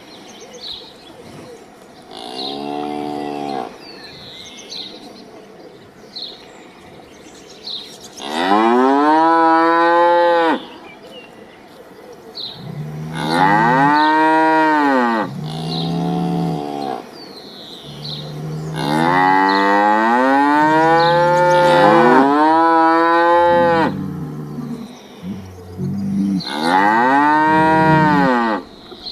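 Cow mooing repeatedly: a short, quieter moo, then several long, loud moos that rise and then fall in pitch, the longest held about five seconds.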